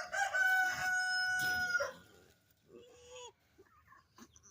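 Rooster crowing once, a single long crow of about two seconds, followed about a second later by a short, fainter call.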